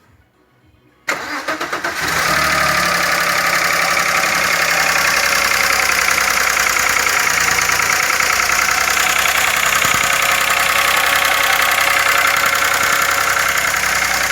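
Audi A6 engine cranks and starts about a second in, then idles with a loud, fast, steady clatter. The knocking is put down to the hydraulic valve lifters.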